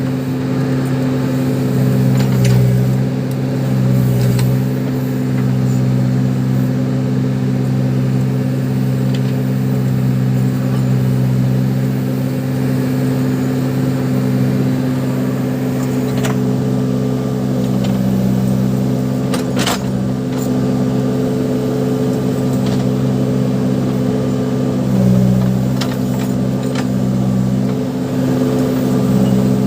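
Case 580 Super backhoe loader's diesel engine running steadily, swelling slightly now and then, with a few sharp clanks, the loudest about two-thirds of the way through.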